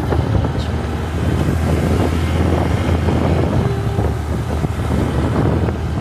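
Motorcycle engine running at a steady cruise, with wind rushing over the microphone.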